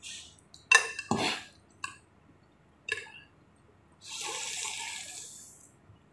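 Eating hot noodle soup: several knocks and clinks of a spoon against the bowl in the first few seconds, then a slurp of broth lasting about a second and a half.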